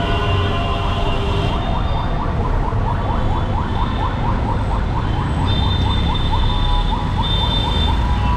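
A vehicle siren in a fast yelp, short rising whoops about five times a second, starting about a second and a half in, over a steady rumble of street traffic.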